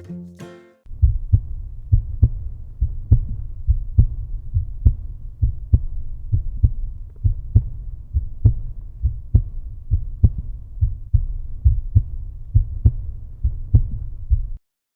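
Outro music: a deep, steady thudding bass beat at about two beats a second, following a short plucked-string phrase, cutting off abruptly near the end.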